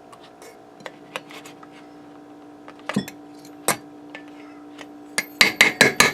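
Scattered clinks of utensils, then about five seconds in a fast run of sharp metallic taps, about five a second, knocking on an upturned metal bundt pan to loosen the cake from it. A faint steady hum runs underneath.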